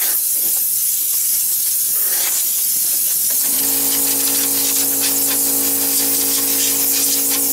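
Compressed-air blow gun blasting air into an engine bay to clear out loose dirt: a loud, continuous hiss. About halfway through, a steady hum with several tones starts up underneath the hiss.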